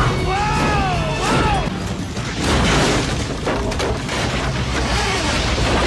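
Action-film sound mix: an explosion's heavy rumble and crashing, smashing debris over an orchestral score, with a few swooping tones in the first second and a half.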